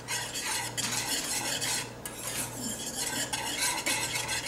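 Small wire whisk stirring a boiling brown sugar sauce in a ceramic saucepan: its wires scrape and click quickly against the pot, with a short lull about two seconds in.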